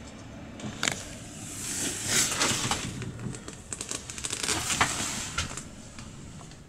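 Rustling and crackling handling noise with scattered clicks, swelling twice, over a low steady rumble.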